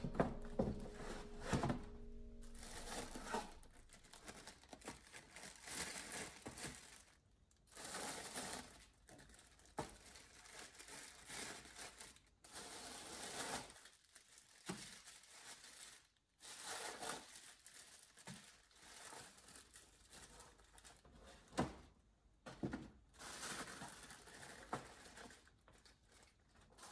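Thin clear plastic bags crinkling and rustling in irregular bursts as they are handled and pulled over small plant pots.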